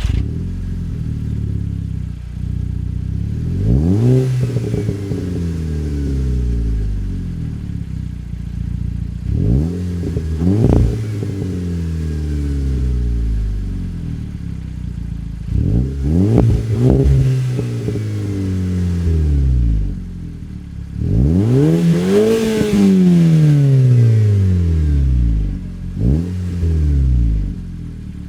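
Volkswagen Golf V GTI's turbocharged 2.0-litre four-cylinder engine with an aftermarket REMUS-made sport exhaust, idling and revved several times, each rev climbing quickly and falling back slowly to idle; the highest and longest rev comes about two thirds of the way through.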